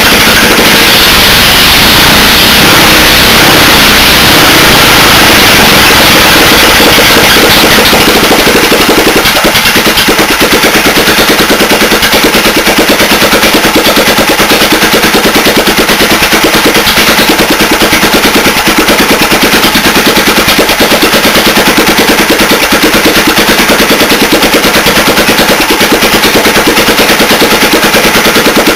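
Honda GV400 single-cylinder vertical-shaft petrol engine running on a test bench, very loud, with the exhaust valve freshly lapped and the engine running well. About nine seconds in its note settles to a slower, choppier beat of separate firing pulses.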